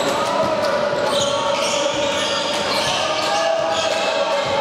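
A basketball bouncing on the court during a game, with voices.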